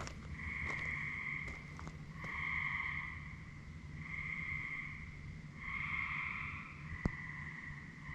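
Loud night-time animal calls in a chorus, each call about a second long and repeating every second or two, with the callers overlapping one another. A single sharp click comes near the end.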